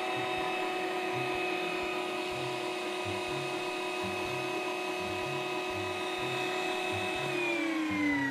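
Electric meat grinder's motor running with a steady whine while it grinds Orbeez water beads. Near the end its pitch falls as the motor slows down.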